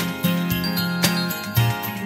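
Background music with a bass line that changes notes every half second or so under steady higher tones.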